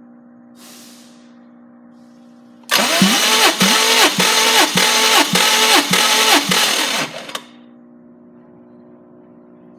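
Subaru EZ30R 3.0 L flat-six engine being cranked over by its starter motor for about four and a half seconds, pulsing at a steady rhythm of roughly two beats a second, then stopping.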